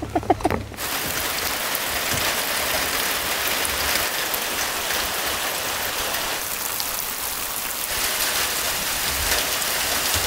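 Heavy rain pouring down steadily, an even hiss of a downpour.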